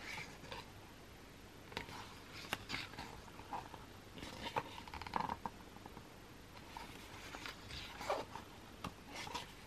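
Pages of a photobook being turned by hand: faint, scattered paper rustles and soft flicks, one every second or so.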